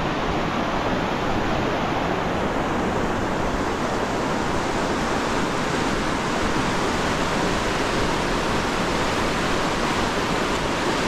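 Fast-flowing river rushing over rocky rapids: a steady, even roar of white water that does not change.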